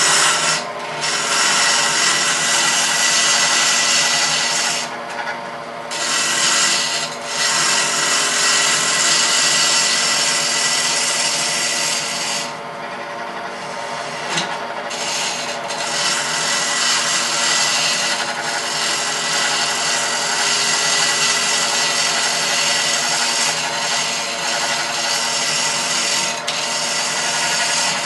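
Wood lathe running, with a hand-held turning tool cutting the spinning wooden spindle: a steady motor hum under the hiss of the tool peeling off shavings. The cutting hiss drops away briefly a few times, longest about halfway through.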